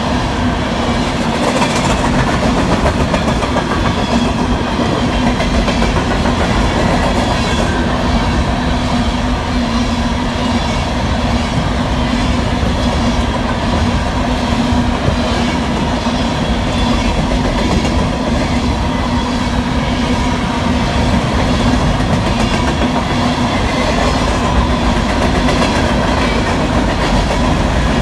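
Freight cars of a long coal train rolling past at speed: a steady rumble with the rapid clickety-clack of wheels over rail joints.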